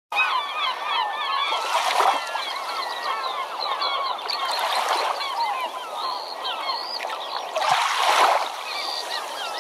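A dense flock of birds calling, many short curved calls overlapping continuously, with louder swells of noise about two seconds in and near the end.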